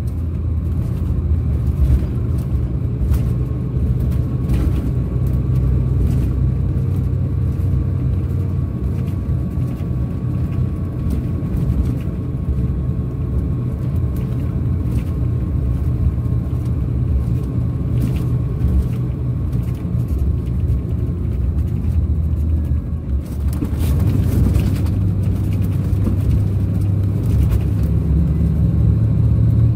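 Rear-mounted Scania DC13 inline-six diesel of a Scania K400 coach, heard from inside the cabin while the coach is under way, running with a steady low drone. About three quarters of the way through, the engine note briefly drops, then comes back louder.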